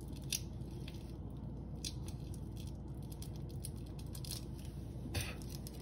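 Heat-sealed plastic wrap on a fingerboard being picked at and handled: scattered faint clicks and crinkles, a little busier about five seconds in, over a steady low hum.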